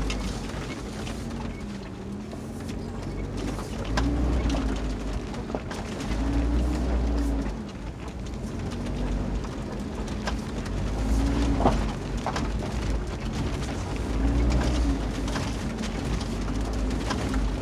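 Inside the cabin of a 2020 Kia 4x4 driving slowly over a rocky dirt track. The engine hum rises and falls in pitch every few seconds under a low rumble from the tyres and suspension, with scattered knocks and rattles from the rough ground, the sharpest one near the middle.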